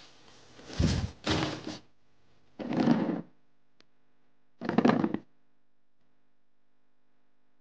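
Four short rustling thumps as a backpack is taken off and set down and a plastic chair is pulled out and sat on.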